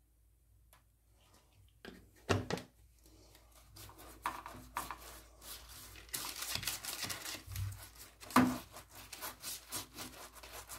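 Baking paper lining a baking tray rustling and crinkling as it is handled, with a few sharp knocks, loudest about two seconds in and again about eight seconds in, as a plastic oil bottle is handled over the tray to grease the paper.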